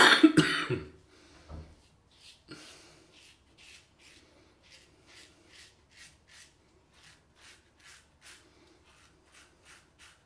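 Parker 99R double-edge safety razor with an Astra SP Green blade scraping through lathered stubble in short, rapid strokes, about two a second. A brief loud noise comes first.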